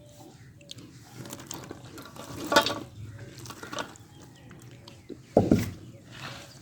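Cut lemons being tipped into a large pot of oily spice mix: soft scattered rustles and clatter, with two louder knocks about two and a half and five and a half seconds in.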